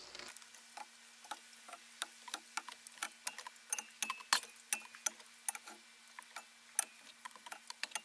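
Aluminium drink cans being lifted out of a backpack fridge and stood on a wooden table: an irregular run of light clinks and knocks, can against can and can on wood, a few a second.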